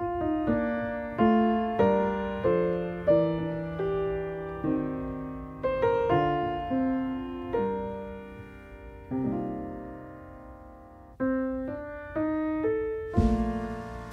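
Background music: a piano melody of single struck notes, each fading away, with fuller accompaniment coming in near the end.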